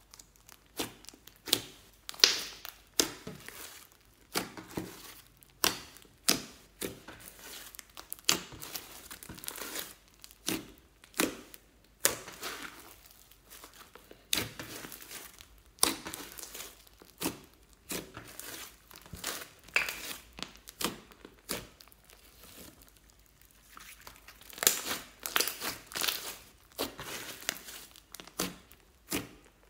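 Hands kneading and pressing a large mass of fluffy slime, giving a run of irregular sharp crackles and pops, about one or two loud ones a second.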